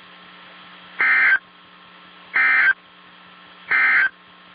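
Emergency Alert System end-of-message code on NOAA Weather Radio: three short bursts of buzzy digital data tones, about 1.4 seconds apart, marking the end of the alert. A steady hum and faint hiss run underneath.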